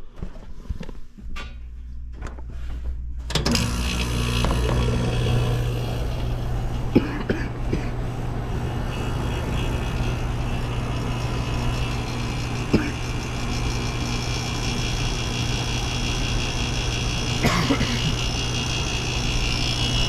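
1990s Montgomery Ward Signature 2000 window air conditioner starting up: a low hum comes on about a second in, and about three seconds in the unit comes up to full running with the fan's blowing air over a steady low hum. It keeps running evenly, with a few faint clicks.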